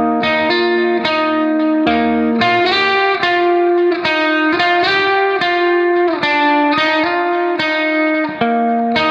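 Background music: a guitar picking a steady run of notes.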